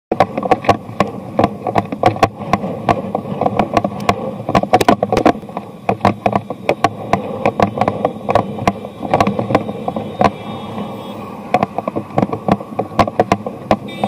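Bicycle and its handlebar-mounted camera rattling and knocking over the road surface, with a steady rumble. A car horn sounds from behind for a few seconds, starting a little past halfway through, fainter than the rattling.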